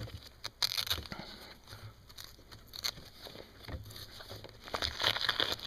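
Handling noise of a nylon cheek-rest pouch being unstrapped and pulled off a synthetic rifle stock: fabric rustling and scraping with a few light clicks, and a longer rasp near the end.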